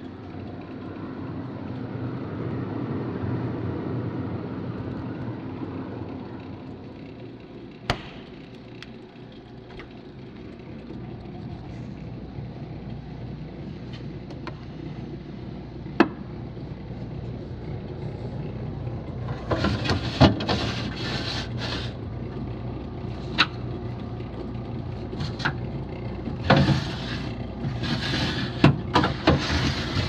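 Plastic refrigerator door bin and crisper drawer being handled: a few single sharp clicks, then a run of clattering knocks and rattles in the last third, over a steady low hum.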